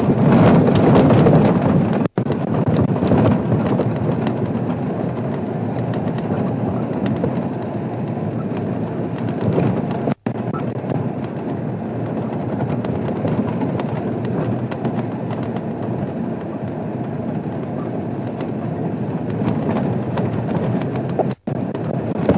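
An open game-drive vehicle driving fast over a bumpy sandy dirt track: the engine runs and the body knocks and rattles over the ruts. The sound cuts out briefly three times.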